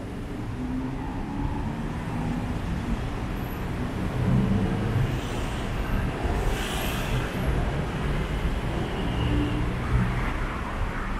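Busy city road traffic: vehicle engines running and passing in a steady low rumble, with a short high hiss about six seconds in.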